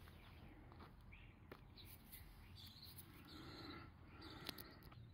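Near silence with a couple of faint clicks of metal parts while new brake pads are fitted to a disc brake caliper.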